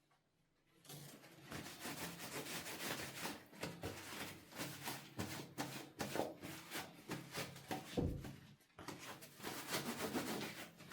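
A bathroom mirror being wiped by hand: quick, close rubbing strokes start about a second in and go on in runs. There is a single dull thump about eight seconds in.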